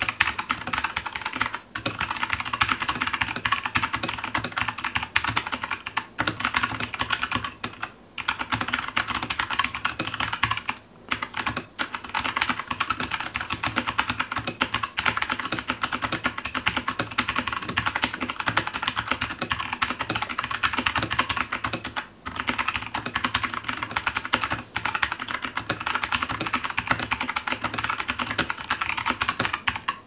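Keychron K2 mechanical keyboard being typed on fast and continuously: a dense stream of keystrokes broken by a few short pauses.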